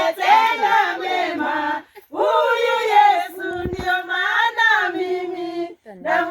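A group of voices singing together in chorus, in phrases broken by short pauses about two seconds in and near the end, with a brief low thump midway.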